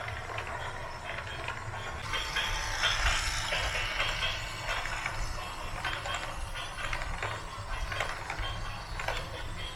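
Machinery rattling and clanking with many short clicks over a low rumble.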